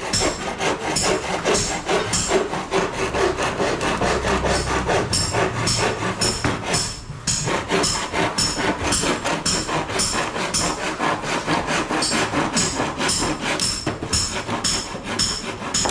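Handsaw cutting through a hollow WPC (wood-plastic composite) fluted wall panel, in steady back-and-forth strokes at about three a second, with a short pause about seven seconds in.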